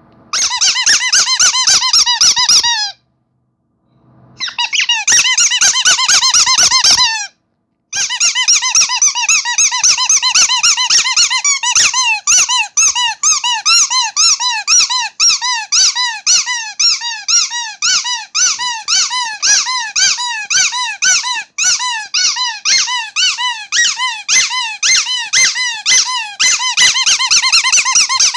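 Rubber starfish squeaky toy being squeezed again and again. It gives two quick runs of squeaks with short pauses between them, then a long steady series of separate squeaks, each sliding up and down in pitch, about two to three a second.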